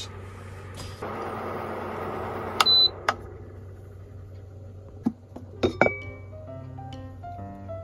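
A rustle, then a single short beep from an induction cooktop as it is switched on, a click, and a few clinks of a pot lid being lifted from the pot. Gentle plucked-string background music starts after the clinks.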